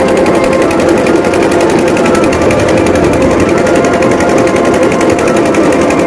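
Drums beaten in a fast, unbroken roll, loud and continuous.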